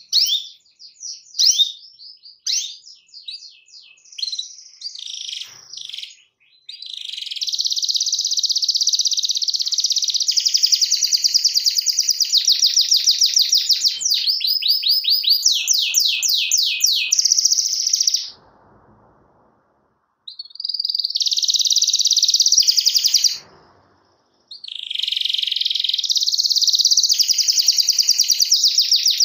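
Canary singing: a few short chirps and brief trills, then long, fast rolling trills of rapidly repeated notes. The song breaks off for about two seconds past the middle, and again briefly a few seconds later, before the rolling resumes.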